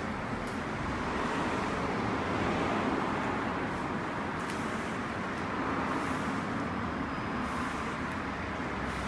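Cloth wiping across a car's painted hood, a steady rubbing noise that swells and eases with the strokes, as water-spot remover is worked over the paint to lift mineral water spots.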